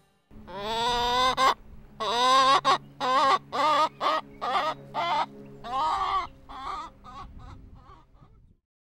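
Chicken calling: one long call, then a run of shorter wavering calls that grow fainter and stop shortly before the end.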